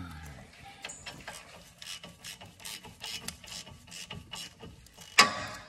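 Ratchet wrench clicking as it tightens a caliper bracket bolt on a front brake, a run of clicks about two or three a second, with one sharp metallic knock near the end.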